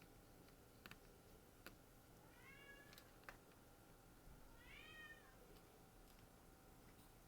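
A cat meowing faintly twice, each meow a short call that rises and falls in pitch, with a few small sharp clicks in the first half.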